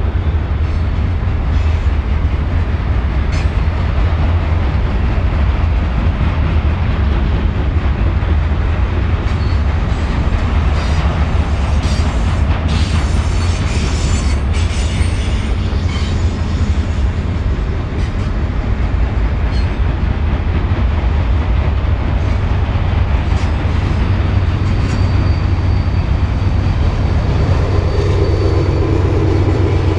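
Train passing close by: a steady, heavy rumble of railcars rolling on the rails, with scattered wheel clicks. A faint high wheel squeal sounds for a few seconds near the end.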